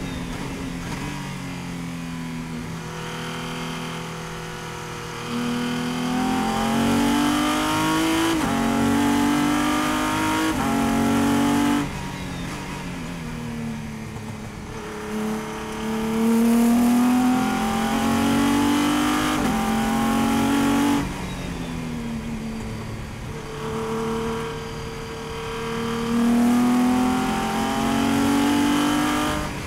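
Race car engine heard from inside the cockpit, accelerating hard with quick upshifts: the note climbs, drops sharply at each shift and climbs again. Twice, about 12 and 21 seconds in, the driver lifts off and the note falls away and goes quieter before the next run of acceleration.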